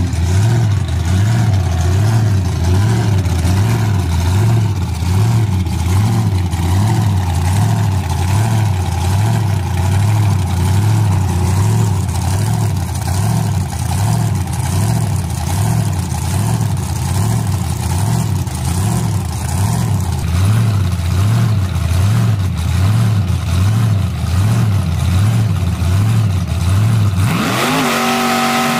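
Race-truck engines idling with a loud, rhythmically pulsing low rumble. Near the end an engine revs up sharply as the pitch climbs.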